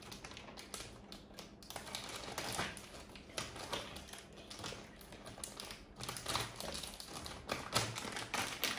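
Irregular light clicking and crinkling of plastic sweet wrappers being handled.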